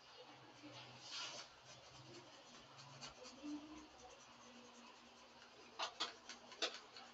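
Paintbrush rubbing faintly across a canvas in short strokes, then a few sharp taps near the end as the paint tins are handled.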